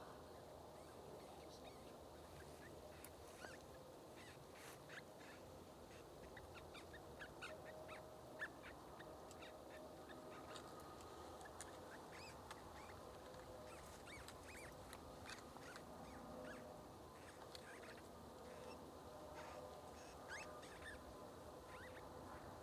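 Faint, distant geese honking, with many short calls scattered throughout over a quiet background.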